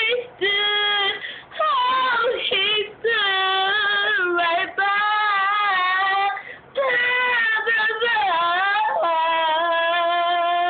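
A young female voice singing a gospel song unaccompanied, in long held notes that bend and run in pitch over several phrases, ending on a long held note.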